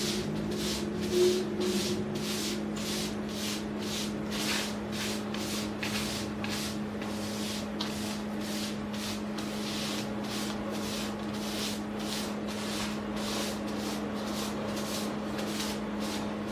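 Hand sanding: rhythmic back-and-forth strokes of sandpaper on wood, about two a second, over a steady low hum.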